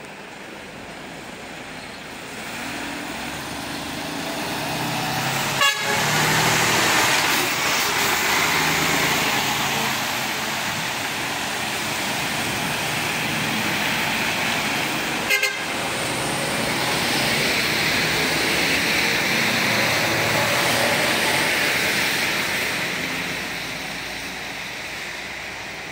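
Decorated dekotora truck driving past on a wet road, its engine and tyre hiss swelling as it passes and fading as it goes away, while its air horns sound a string of short notes that change pitch. Two sharp knocks about six and fifteen seconds in.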